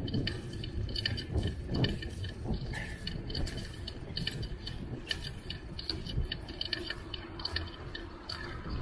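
Bicycle freewheel ticking as the bike coasts: a steady run of quick clicks from the rear hub's ratchet, over a low rumble.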